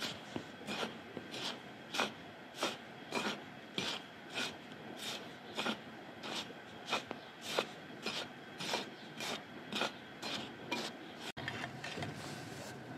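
A hand stirring and rubbing a dry mix of flour and spices in a wide pan: a steady rhythm of short scratchy rubs, about three every two seconds, that stops near the end.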